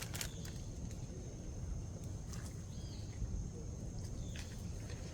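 Outdoor ambience: a steady low rumble with a thin steady high tone, broken by a few short clicks and two small chirps.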